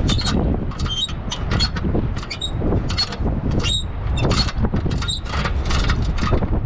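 Strong wind buffeting the microphone, a heavy, continuous rumble with frequent irregular crackles over it.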